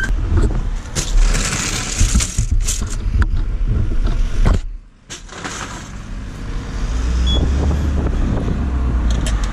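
Road traffic and a vehicle engine running, with knocks and scraping as rescue gear is handled in a fire engine's side equipment locker and a buckle strap on a rescue bag is undone. The knocks come in the first half; a steady low rumble takes over in the second half.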